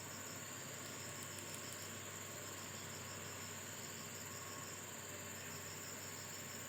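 Insects chirping in an even rhythm of about five pulses a second, over a steady high-pitched insect drone and a faint low hum.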